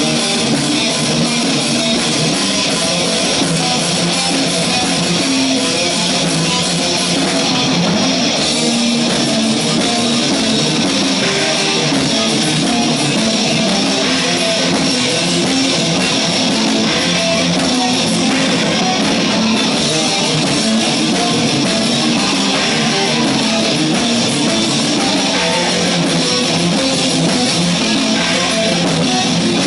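Live heavy metal band playing: electric guitars over drums, loud and unbroken, with no singing.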